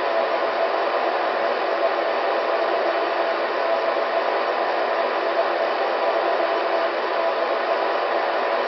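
Steady, unchanging hiss with faint steady tones running through it, like blower or static noise.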